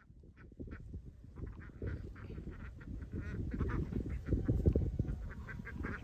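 Domestic ducks quacking over and over in quick short calls, over a low rumble.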